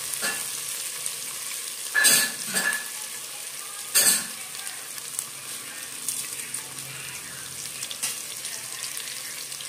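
Sliced onions and ginger-garlic paste sizzling steadily in hot oil in a pressure cooker pot, with two sharp knocks about two and four seconds in.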